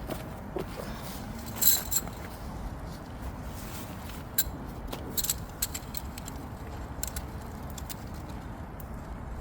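Small metal camping gear clinking and clicking as it is handled while a tarp shelter is rigged: a handful of scattered sharp clinks, the loudest about two seconds in, over a steady low background noise.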